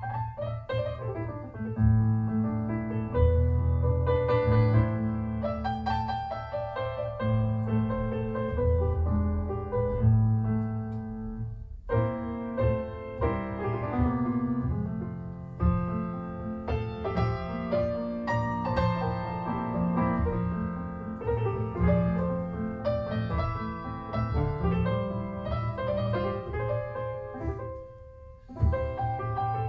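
Solo acoustic piano recording played back over Focal Diva Utopia loudspeakers and picked up binaurally in the room, with bass notes and chords under a melody. The playing thins to a brief pause about twelve seconds in and again near the end.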